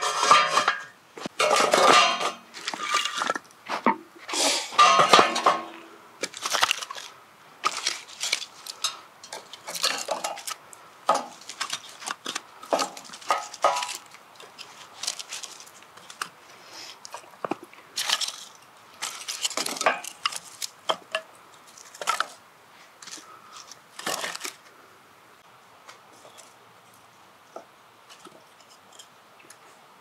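Irregular metallic clinks and knocks of camp gear and firewood being handled while a campfire is prepared. They come thick and loud for the first several seconds, grow sparser, and die away in the last few seconds.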